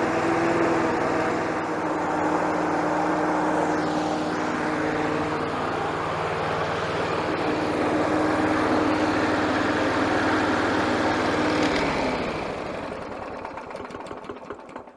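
Briggs & Stratton 550EX four-stroke engine on a Victa lawnmower running at a steady speed with a new air filter fitted, no longer surging; the surging had come from a blocked air filter. About twelve seconds in it is shut off and runs down to a stop.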